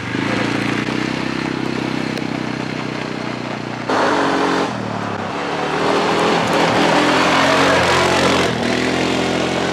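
Quad bike (ATV) engine running as it is ridden along a gravel track, a steady engine note that gets suddenly louder and closer about four seconds in and climbs as it passes.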